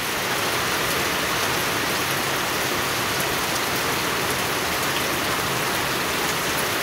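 Steady rain falling on pond water and wet stone paving, an even hiss with a few faint drop ticks.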